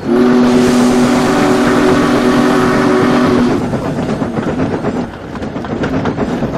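Steam locomotive whistle sounding one steady chord for about three and a half seconds, then the train running on with a rhythmic clatter.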